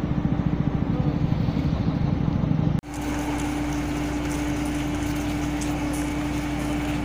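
Motorcycle engines running with a fast, pulsing low rumble as bikes ride up a ferry's steel loading ramp. After a sudden cut about three seconds in, a steady, even-pitched machine hum over a low rumble.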